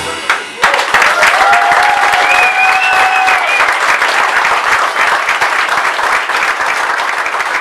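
Audience applauding as the live music stops: the band's final chord cuts off at the start, and within a second a dense round of clapping sets in and continues, with one voice holding a long cheer for about two seconds near the beginning.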